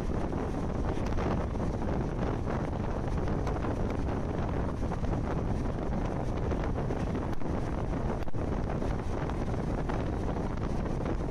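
Wind buffeting the microphone at the open window of a moving passenger train, over the train's steady running noise on the track.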